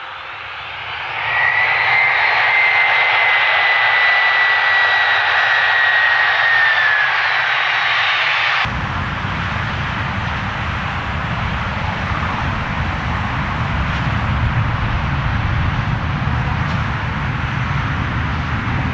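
Jet airliner touching down on a wet runway, its engine and spray noise swelling about a second in, with a high whine that drops slightly near the end of the landing roll. After an abrupt cut, a steady low rumble of another jet airliner on final approach.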